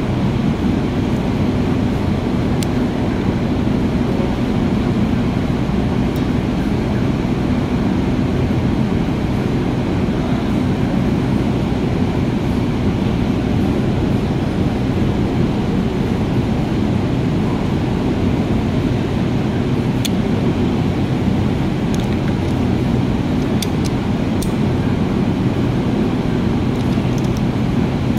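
A steady low mechanical drone with a faint hum in it, and a few faint clicks of small metal parts being handled.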